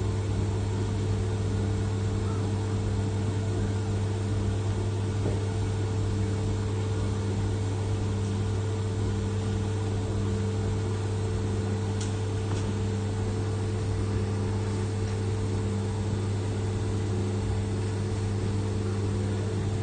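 CNC milling machine running steadily through a machining program: a constant hum with a few steady tones.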